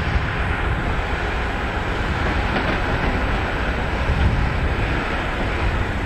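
Diesel engines of a large excavator and an articulated dump truck running steadily under load, a continuous rumble with no distinct tones.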